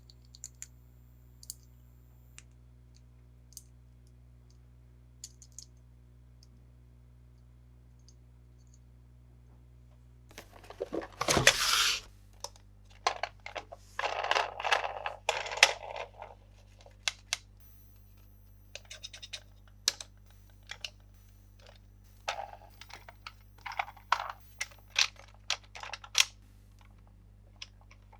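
Plastic toy vehicle and its packaging being handled during an unboxing. At first there are only a few light scattered clicks. About ten seconds in comes a loud rustle, followed by quick clicks, taps and short rustles of plastic.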